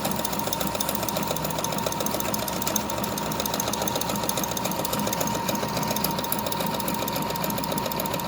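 Brother FS101 sewing machine running steadily, sewing a decorative stitch pattern with a twin needle. Its needle strokes make a fast, even clatter over a steady motor whine.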